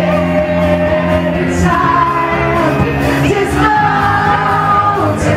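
Live pop-rock band playing, with a woman's lead vocal singing long held notes into a microphone over it.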